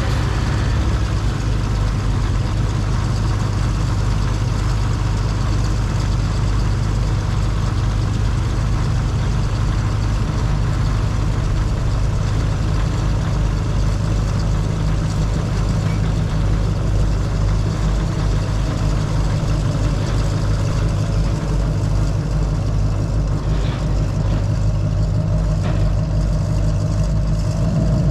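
Large diesel engine idling steadily, a deep continuous low rumble with a fast even throb.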